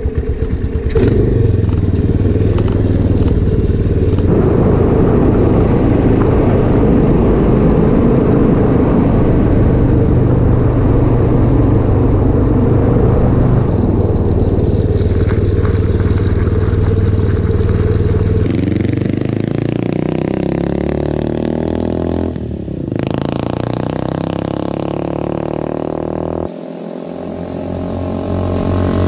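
A homemade reverse trike's 185 cc engine running steadily under way, heard close up with road and wind noise. Near the end the engine is heard from the roadside as the trike approaches, its pitch gliding.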